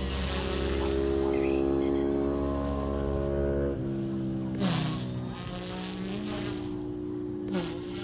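Electric OMPHobby M1 RC helicopter in flight: a steady whine from its motor and rotor, broken about halfway through and again near the end by short bursts of rotor noise with a quick dip in pitch as it manoeuvres.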